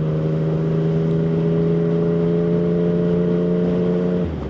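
Yamaha MT-09 motorcycle's inline three-cylinder engine running under steady throttle while riding, holding one note. Near the end the note drops briefly, then climbs straight back.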